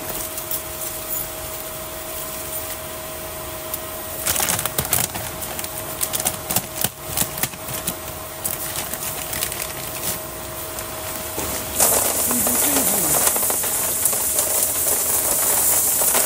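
A plastic bag of water-softener salt pellets crackling as it is handled and opened, then from about twelve seconds in the pellets pouring into a plastic brine tank with a steady rushing hiss.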